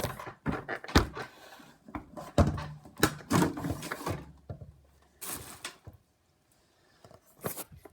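Handling noise: irregular knocks, clunks and scrapes, with a short near-silent gap about six seconds in.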